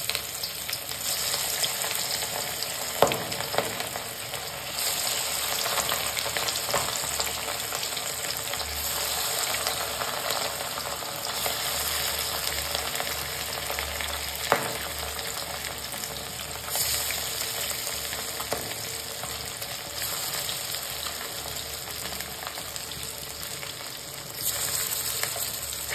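Coated rohu fish pieces sizzling as they deep-fry in hot oil in a kadai. The sizzle flares up several times as more pieces are dropped in, with a few sharp clicks.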